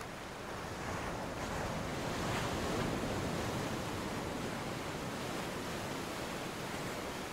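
Ocean waves and surf, a steady wash of water noise that swells over the first three seconds and then holds.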